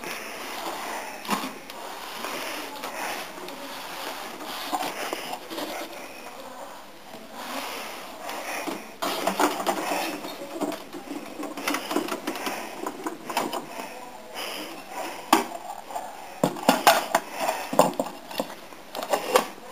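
Hard plastic parts of a toy garbage truck clicking and rattling as they are handled, with a run of sharp clacks near the end as the rear bin lifter is worked by hand.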